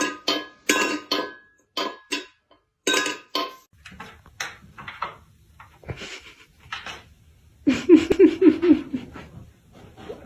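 Clattering and clinking: a string of short sharp knocks, like hard objects or dishes being knocked about, densest in the first few seconds, with a quick run of short pitched sounds about eight seconds in.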